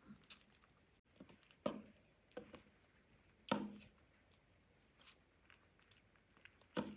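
Kittens eating dry kibble from a plastic food bowl: a few sharp crunches and clicks, the loudest about halfway through and another near the end.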